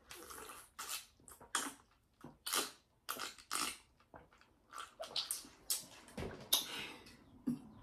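Close-up eating sounds: chewing and lip-smacking, a quick irregular run of short wet mouth noises.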